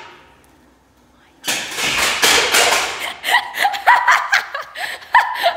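A Razor kick scooter crashes and scrapes on a concrete floor as its rider falls, a loud clattering rush lasting about a second and a half. Bursts of laughter follow.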